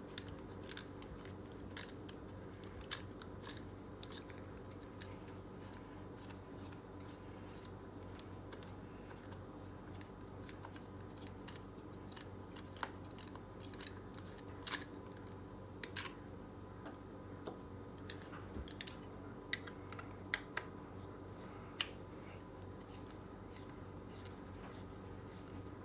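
Scattered small clicks and ticks of a hand tool working a screw out, over a steady low hum.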